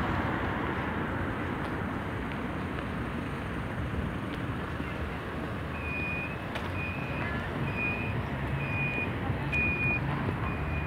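Steady city traffic noise, joined about six seconds in by a pedestrian crossing signal beeping: short high beeps repeating a little faster than once a second, signalling the green walk light.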